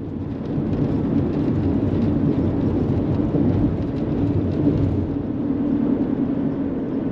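Steady road and wind noise of a vehicle driving at highway speed, a loud low rushing that swells about half a second in and holds.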